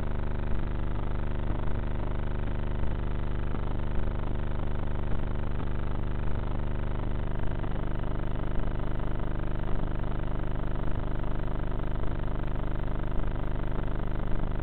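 Bixler RC plane's electric pusher motor and propeller running steadily in flight, picked up by the onboard camera, with a short louder pulse about once a second.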